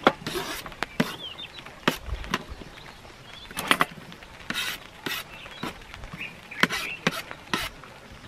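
Kitchen knife chopping on a cutting board: about a dozen sharp, irregular knocks, with a few short scrapes of the blade across the board between them.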